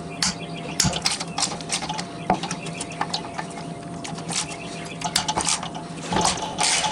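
Ratchet wrench with a 14 mm socket clicking in quick, irregular runs as the bolts holding the pressure washer pump and engine to the mount are cracked loose, with light metal clinks, over a faint steady hum.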